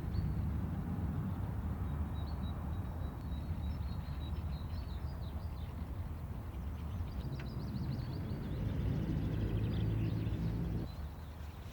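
Outdoor sound of small birds chirping over a low, steady rumble. The rumble swells near the end and then cuts off suddenly about eleven seconds in.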